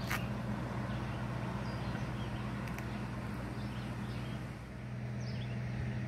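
Steady low hum over a background of road traffic, with a few short bird chirps scattered through.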